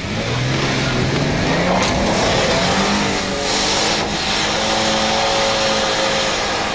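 An off-road vehicle's engine revving hard, rising in pitch over the first two or three seconds and then held high and steady.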